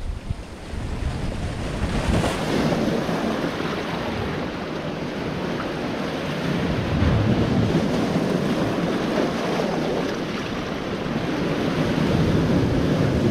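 Sea surf breaking and washing over rocks, swelling louder about two seconds in and again near the end, with wind rumbling on the microphone.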